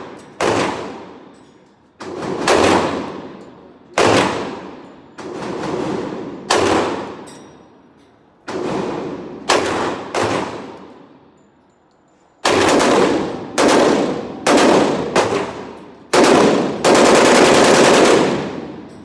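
Single shots from a 9mm Glock 34 Gen 5 MOS pistol in its first string of fire: about a dozen sharp cracks at uneven spacing, some in quick pairs, each ringing out in a long echo off the walls of an indoor range.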